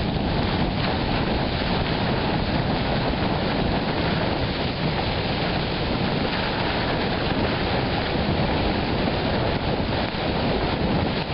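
Storm wind beating on a tent, heard from inside it: a dense, steady rush of noise against the fabric.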